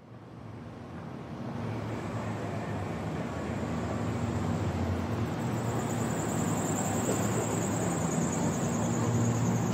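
Opening of a background music track: a hissing, rushing noise fades in from silence and slowly grows louder, with a faint low hum beneath it.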